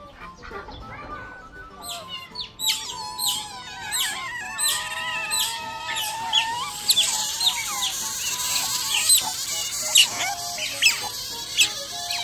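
Otters squeaking and chirping in rapid, high-pitched calls, starting about two and a half seconds in and growing busier, over background music.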